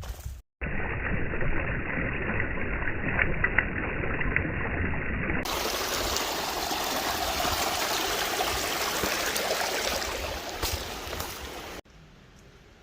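A small mountain stream running, a steady rush of water heard in two spliced clips, the first duller than the second. It cuts off about a second before the end, leaving only a faint hiss.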